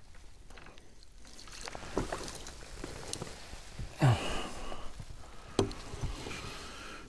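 Water splashing as a hooked crucian carp is swung up off the surface on a float rod, loudest about four seconds in, with dripping and a few small knocks around it.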